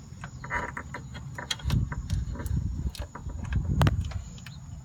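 Hands working at the car's clutch cable: a run of clicks and knocks with heavier low thumps about two and four seconds in, and a brief squeak about half a second in.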